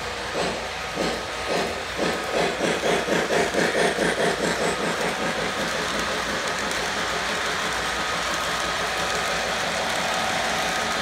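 Lionel LionChief O-gauge steam locomotive's sound effects chuffing. The chuffs quicken from about one a second to a rapid beat as the engine picks up speed, then merge into a steady rushing run noise from about five seconds in.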